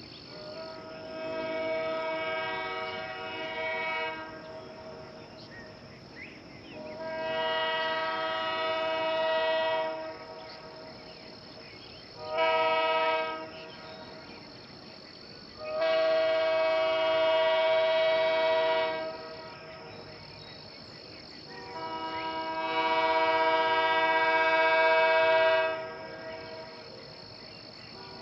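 Early-1960s Canadian sand-cast Airchime K3H three-chime train horn sounding a steady chord, blown five times: four long blasts of about four seconds and one short blast near the middle. Its number 1 bell still has a slight warble.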